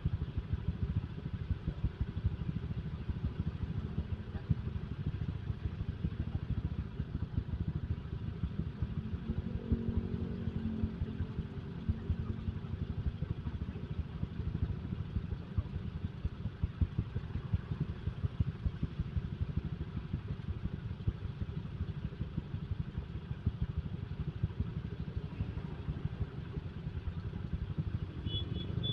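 Motorcycle riding along, its single-cylinder engine running steadily with a low, fast-pulsing rumble, heard from the rider's own bike. About ten seconds in, a brief droning tone rises over it.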